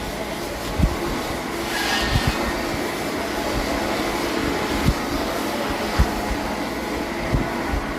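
Sawmill machinery running steadily with a constant hum, and a few dull knocks scattered through.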